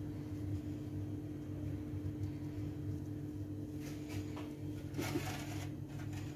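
A steady low mechanical hum, with faint scraping and light taps of hands working semolina-coated dough about four to five seconds in.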